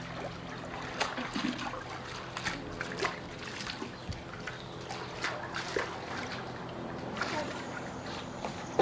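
Swimming pool water splashing and sloshing, with small irregular splashes and trickles and no single big splash.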